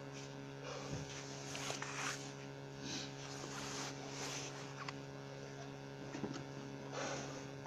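Steady low electrical hum, with brief rustles and scuffs a few times.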